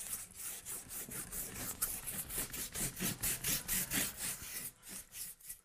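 Cloth rag scrubbed rapidly back and forth over a painted canvas, about five strokes a second, thinning out near the end.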